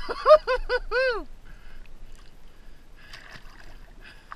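A quick run of about five high squeals, each rising and falling in pitch, in the first second or so, then quieter water sloshing and splashing around someone wading in a pond.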